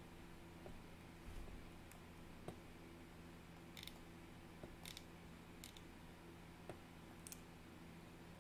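Faint, scattered clicks from a computer mouse and keyboard, about eight sharp clicks at irregular intervals, over a low steady room hum.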